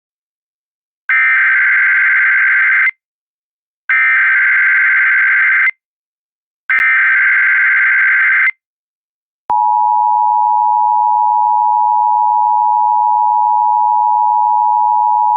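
Emergency Alert System SAME header: three identical bursts of rapid digital data tones, each a little under two seconds long, then a steady attention tone that begins about nine and a half seconds in. It marks the start of an AMBER Alert (child abduction emergency) broadcast.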